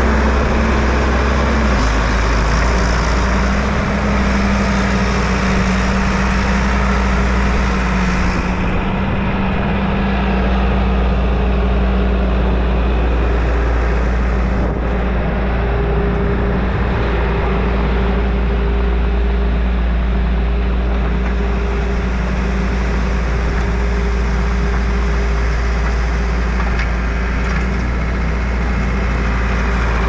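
Skid steer's engine running steadily with a deep rumble and a steady droning hum whose pitch shifts slightly now and then.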